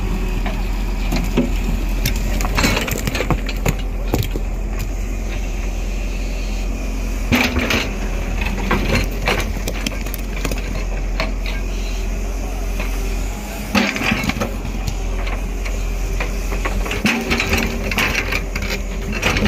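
JCB crawler excavator's diesel engine running steadily while its bucket scrapes and pries out large rocks, with irregular crunches and clunks of stone on stone, louder about seven seconds in, again about fourteen seconds in, and near the end.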